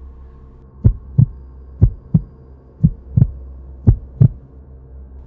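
Heartbeat sound effect: four double thumps, lub-dub, about one a second, over a low steady drone.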